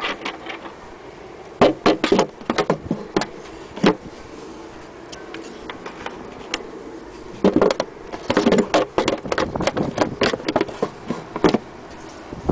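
Antique Singer hand-crank sewing machine and its wooden base knocking and clattering as they are handled, in two irregular spells of sharp knocks, over a steady background hum.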